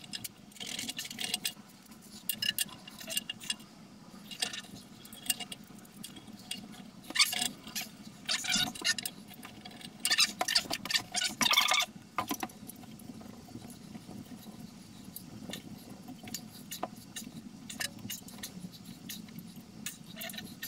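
Cap-head bolts clinking, rattling and scraping against an aluminium pier adapter plate as they are fitted and tightened, in irregular bursts that are busiest between about seven and twelve seconds in.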